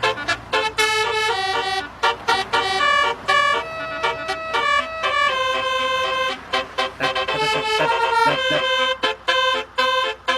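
Telolet multi-tone horn playing a fast tune, stepping from note to note in a run of short and held blasts with brief gaps between them.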